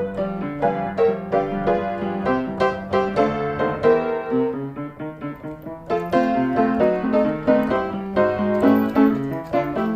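Background piano music, a steady run of notes with chords underneath, growing fuller about six seconds in.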